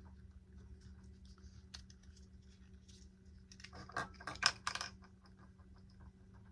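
Small 3D-printed plastic parts clicking and tapping as they are handled and fitted together, with scattered light ticks and a quick cluster of sharper clicks about four seconds in.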